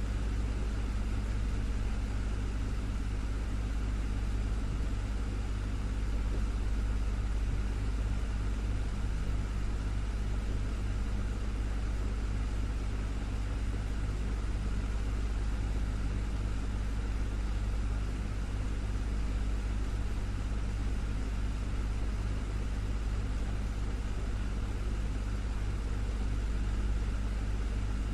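Desktop fan running steadily: an even rush of air over a low, constant motor hum.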